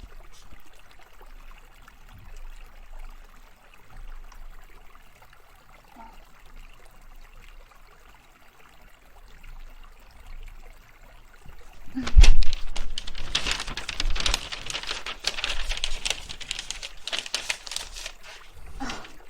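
Close-miked rustling: quiet, scratchy handling at first, then a thump about twelve seconds in and a dense, crackly rustle for most of the rest.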